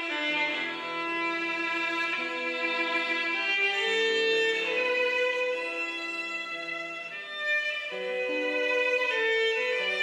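Slow background music on bowed strings led by a violin, with long held notes that change every second or so.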